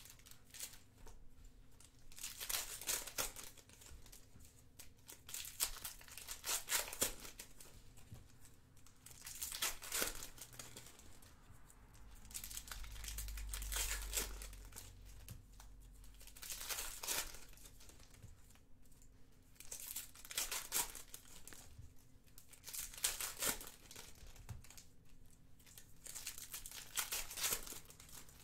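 Foil wrappers of Panini Contenders football card packs being torn open and crinkled by hand, in repeated bursts every few seconds.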